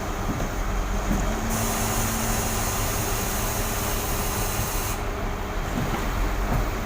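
Concrete pump truck running with steady engine noise. A loud hiss starts about a second and a half in and stops abruptly about three and a half seconds later.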